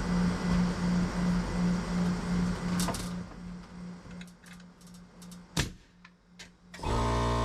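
A low hum pulsing about three times a second fades out, with a sharp click about halfway through the fade. Guitar music starts near the end.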